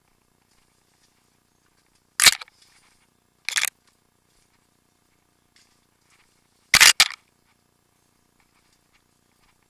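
Short, sharp knocks against near silence: one about two seconds in, another a second later, and a quick double knock about seven seconds in.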